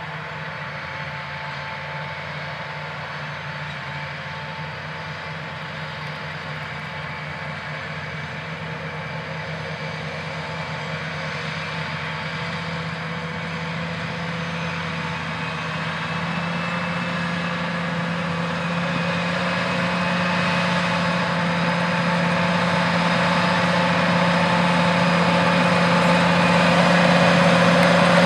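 John Deere 8345RT track tractor's diesel engine running steadily while it pulls a corn planter, growing louder as it comes closer.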